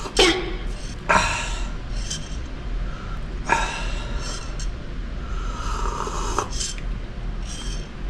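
A man sipping coffee from a tumbler, with short slurps and breaths out after the sips, several noisy sounds every second or so.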